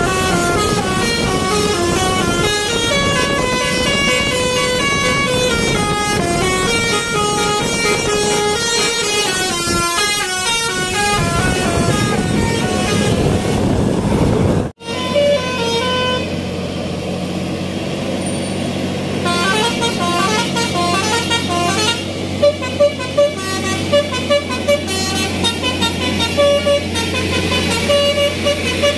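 Indonesian bus telolet horn, a Basuri-type multi-tone horn, playing quick stepping melodies of many notes. About halfway through the sound cuts off sharply. After that a steady low hum runs under the horn, which sounds a string of short, repeated notes near the end.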